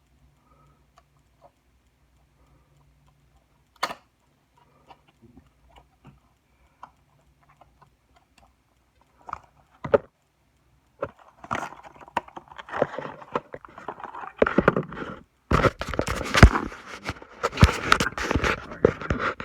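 Toy car packaging being handled: a few light clicks, then from about eleven seconds in a run of crinkling, crackling rustle with sharp plastic clicks as the diecast car is slid out of its cardboard sleeve and plastic case.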